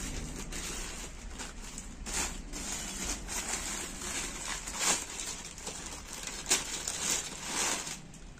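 Clear plastic packaging bag crinkling and rustling as a folded silk dupatta is pulled out of it, in uneven rustles with a few sharper crackles.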